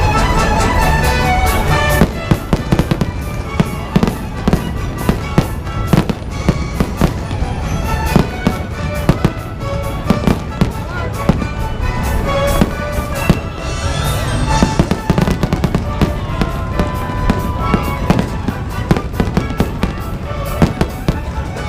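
Fireworks bursting in quick succession, dozens of sharp bangs and crackles starting about two seconds in, over music played along with the show.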